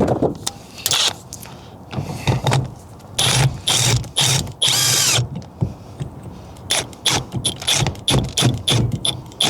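Hand ratchet wrench clicking in short bursts of back-and-forth strokes, turning the center bolt of a steering wheel puller to draw the steering wheel off its shaft.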